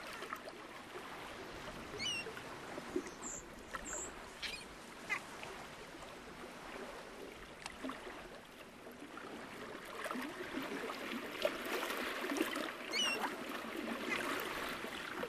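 Gentle shore water lapping and trickling among pebbles, a little louder in the second half, with faint small clicks. Short high chirps sound about two seconds in and again near the end.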